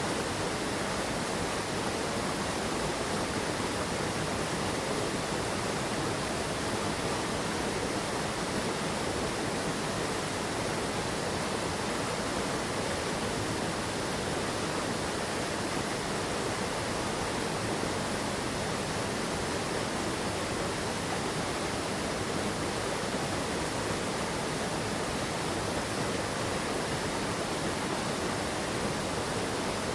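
Steady rush of water from a mountain stream and waterfall.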